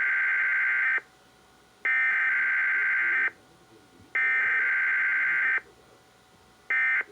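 NOAA Weather Radio SAME (Specific Area Message Encoding) data bursts from a Required Weekly Test: three shrill, buzzing digital tone bursts of about a second and a half each, a second apart, then a much shorter burst near the end.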